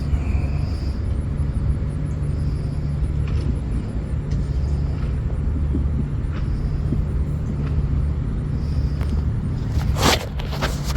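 Gold Bug metal detector giving a few short, high beeps over a steady low rumble, with a brief loud rustle near the end.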